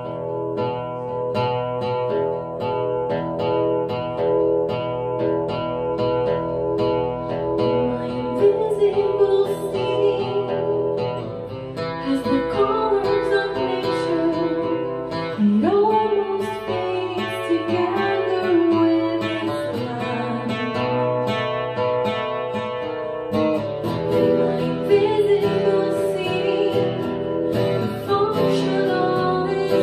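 Live song: a steel-string acoustic guitar played in a steady picked pattern, with a woman's singing voice coming in about eight seconds in and sliding between notes.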